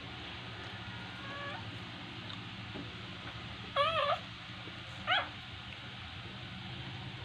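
Newborn border collie puppy crying: a faint squeak about a second in, then a louder wavering high-pitched squeal around four seconds in and a short rising cry a second later, over a steady low hum.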